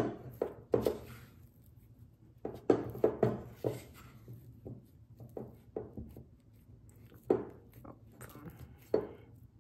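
Spatula stirring and scraping a stiff flour-and-yeast pre-ferment against a mixing bowl: irregular knocks and scrapes in short clusters, with brief pauses between.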